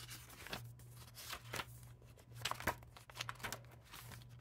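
Paper planner inserts being handled and leafed through: scattered rustles and light taps, with a few sharper ticks a little past halfway, over a faint steady low hum.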